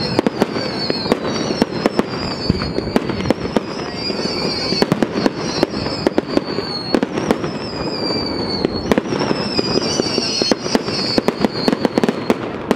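Fireworks display: a continuous barrage of sharp bangs and crackling from bursting shells, with high whistles one after another, each falling slightly in pitch.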